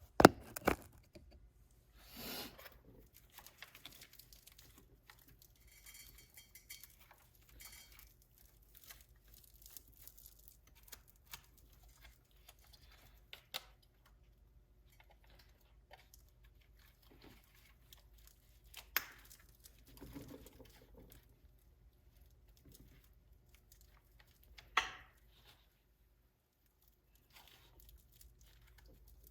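Scattered clicks, knocks and short rustles from hands working with an RC truck's plastic battery box and its wiring, with sharp clicks just after the start, about two-thirds through and near the end.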